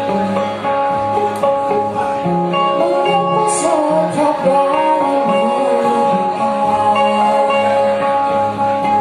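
A woman singing with two acoustic guitars, played live.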